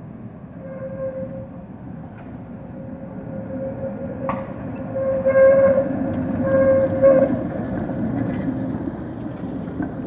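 A tram work vehicle running on the rails close by: a rumble with a steady high whine that swells to its loudest after about five seconds, then eases off. A sharp click comes about four seconds in.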